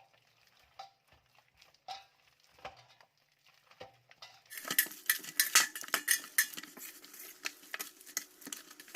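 Hands kneading soft yeast dough with butter in a bowl: a few scattered soft squishes, then from about halfway a quick, continuous run of wet clicking and squelching as the dough is worked.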